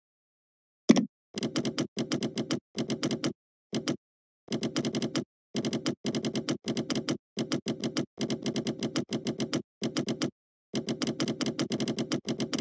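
Computer keyboard typing in quick runs of keystrokes with short pauses between them, and one louder single knock about a second in.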